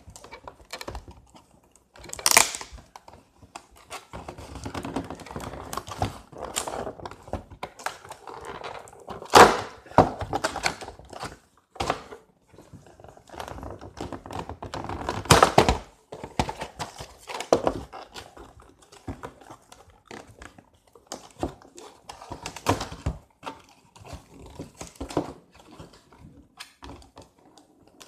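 Irregular knocks, clicks and rustling of a Nerf gun's cardboard-and-plastic package being handled and pried open by hand, with a few louder thunks.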